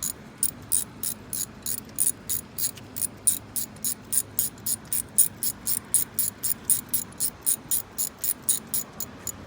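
Socket ratchet clicking in a steady run, about four to five clicks a second, as a spark plug is backed out of the engine.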